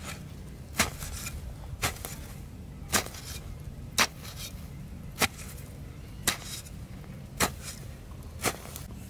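A garden hoe chopping into soil, about nine sharp strikes at a steady pace of roughly one a second.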